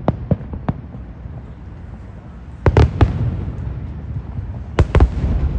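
Aerial fireworks exploding overhead: a few sharp bangs in the first second, a cluster of bangs about three seconds in, and another pair near the end.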